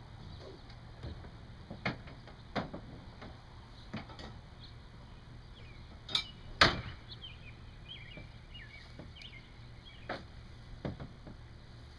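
Irregular knocks and thumps, about seven in all, the loudest a pair of thumps a little past the middle. Faint bird chirps in the background.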